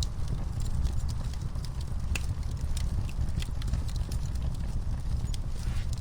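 Wood fire in a fireplace crackling: irregular sharp pops and snaps over a steady low rumble, with one sharper pop about two seconds in.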